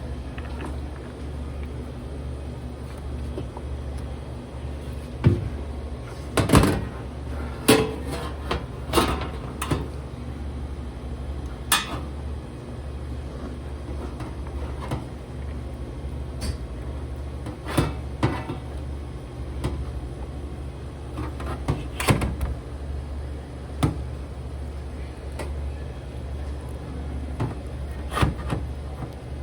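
Scattered knocks and clacks of kitchen work, about a dozen at irregular intervals, with a cluster in the first third. A steady low hum runs underneath.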